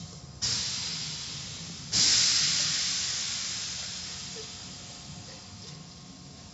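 Automatic tunnel car wash equipment hissing. A jet of spray or air starts suddenly about half a second in, and a louder burst comes in just before two seconds, then fades slowly.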